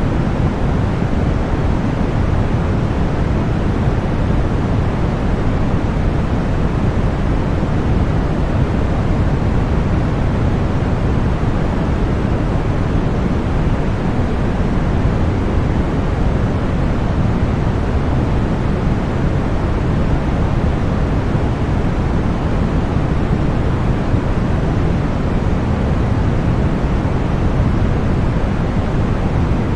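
Continuous synthetic deep white noise: an even, unchanging rush, heaviest in the low end and thinning toward the top, with no events or variation.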